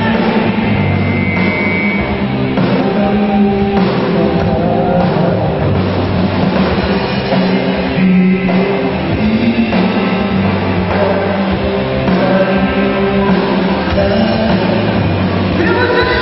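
Live rock band playing loud and continuous: electric guitars and drum kit, with a singer's voice coming in near the end.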